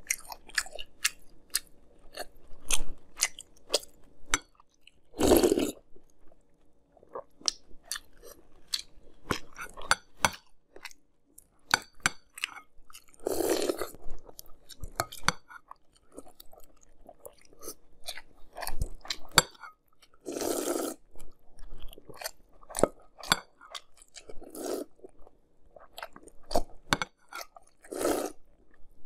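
Close-up eating sounds of a person crunching and chewing Fruity Pebbles cereal in milk: many small crisp crunches, with four louder slurps from the spoon, each under a second long, spread through the stretch.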